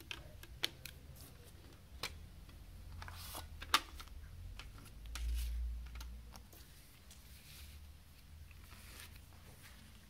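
Plastic CD jewel case and paper booklet being handled: several sharp plastic clicks and taps, the loudest a little under four seconds in, then a dull low thump about five seconds in and soft paper rustling as the booklet is taken out and opened.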